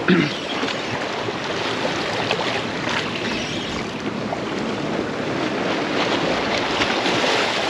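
Waves washing and splashing against jetty rocks, with wind buffeting the microphone; a brief louder sound comes right at the start.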